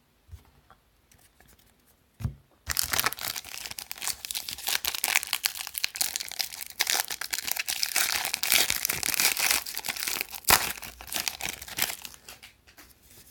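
Foil trading-card pack wrapper being torn open and crinkled. The loud, dense crackling starts about two and a half seconds in and lasts about nine seconds, with a sharp snap near the end.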